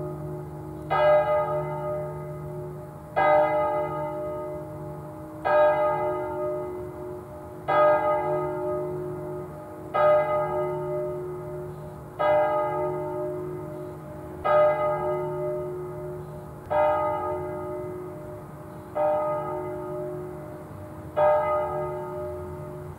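A single church bell tolling the Angelus, struck by a hammer in slow, even strokes about every two seconds, ten strokes in all. Each stroke rings out with a bright, many-toned clang that slowly dies away before the next. A low steady hum underneath fades out about halfway through.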